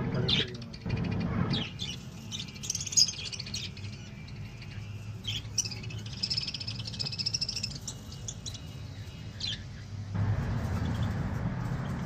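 Budgerigar chicks chirping in a clay-pot nest, with two spells of rapid high chatter about two and a half and five and a half seconds in. A low rumble sits under the chirps near the start and again near the end.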